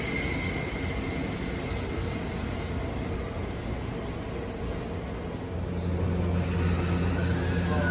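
Izukyu 2100 series resistance-controlled electric train running, heard from inside the car: steady wheel-on-rail and motor rumble that grows louder about six seconds in, with a brief rising-then-falling whine near the end.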